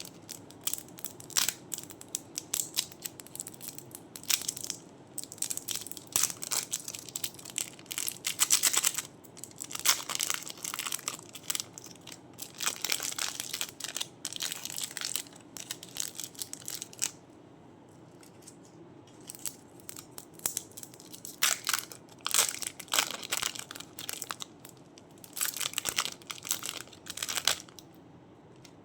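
Crunchy clay being crushed and crumbled by hand, giving bursts of dense, sharp crackling with a quieter pause a little past the middle.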